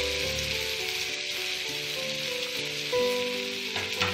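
Diced potatoes sizzling in hot oil in a frying pan, a steady hiss, with background music of held notes playing over it.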